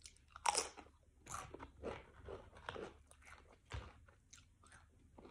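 Biting into and chewing nacho cheese Doritos tortilla chips: a loud crunch about half a second in, then a run of irregular, quieter crunches as the chip is chewed.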